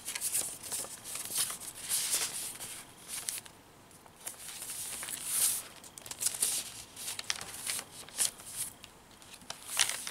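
Paper rustling and crinkling as the pages of a handmade junk journal are turned and loose paper tags and cards are handled, in short bursts. The loudest bursts come about halfway through and near the end.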